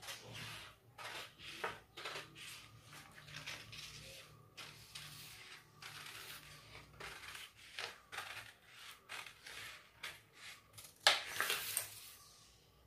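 Large steel tailoring shears snipping through a paper pattern sheet in short, uneven cuts along a curved neckline. The paper rustles and crackles as it is turned and lifted, loudest in a burst near the end.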